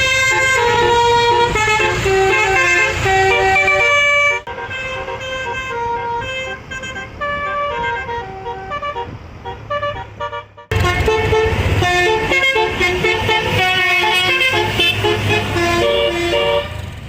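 A bus's six-note telolet horn playing a tune of stepped, sustained notes over a low rumble. The sound drops sharply quieter about four seconds in and comes back loud about eleven seconds in.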